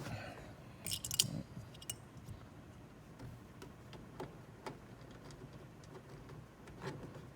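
Faint scattered clicks and taps of a hard plastic interior trim panel being handled and pressed into place against the car's roof, with a short burst of clicks about a second in.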